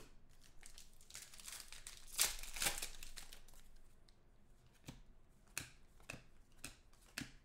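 Plastic wrapper of a trading-card pack crinkling and tearing as the pack is opened, loudest about two to three seconds in. After that come short, scattered rustles and flicks of cards being handled.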